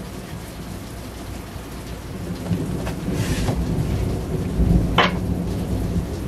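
Steady rain with thunder rumbling under it, swelling from about two seconds in and peaking around five seconds, with one short sharp tick near the peak.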